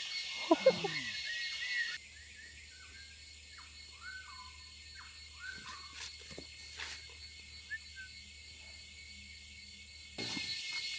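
Tropical rainforest ambience: a steady high drone of insects, with a short loud call sliding down in pitch near the start. After an abrupt drop in level about two seconds in, a series of short, downward-sliding bird chirps sounds over a low hum, and the louder insect drone comes back near the end.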